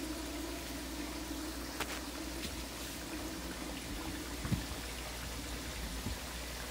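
Breaded chicken breast slices deep-frying in a pot of hot oil: a steady bubbling sizzle, with a few faint clicks.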